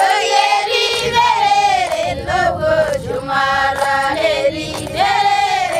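Maasai women and girls singing together in a chant-like group song, voices holding long notes and sliding between them.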